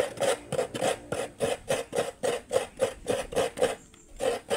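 A half coconut scraped by hand against the serrated metal blade of a bench-mounted coconut grater, grating out the fresh white meat: quick rasping strokes, about four a second, with a brief pause near the end before they start again.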